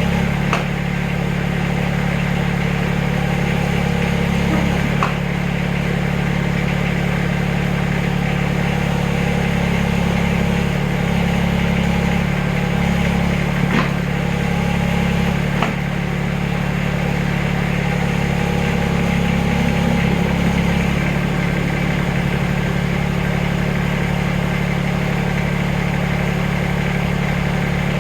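Backhoe engine running steadily, its note shifting a few times, with a few light clicks or knocks.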